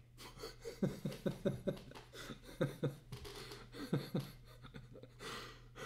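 A man's stifled laughter: rapid short chuckles in a few bouts, with a breath near the end.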